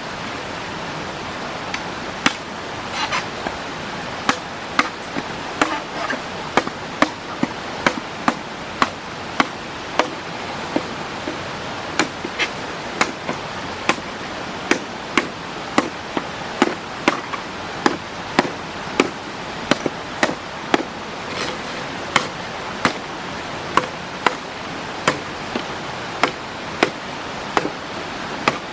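Steady chopping with a blade, a sharp stroke about every three-quarters of a second, over the constant rush of nearby flowing water.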